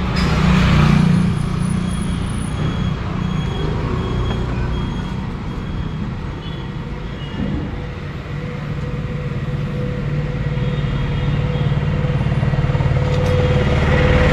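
Street traffic with a motor vehicle's engine running close by: a steady low rumble that grows louder near the end.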